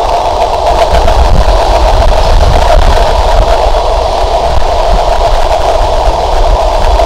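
Steady, loud rumble and running noise of a passenger train, with a deep low drone under a dense midrange roar.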